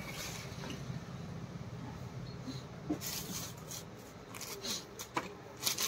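Faint rustling of cloth being gathered up and handled, with a few short rustles and light knocks in the second half, over a steady low hum.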